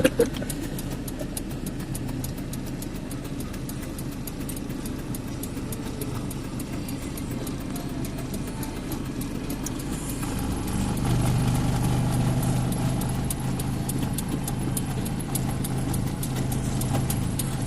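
Car on the move: a steady engine and road rumble with light rattling clicks, growing louder and heavier about ten seconds in.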